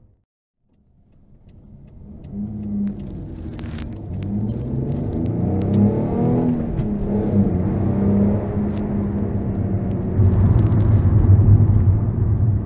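Alfa Romeo 156's 2.5-litre Busso V6 engine running, heard through a smartphone with a Skype microphone. It fades in from silence about a second in, holds a fairly steady pitch with small rises and falls, and grows louder near the end.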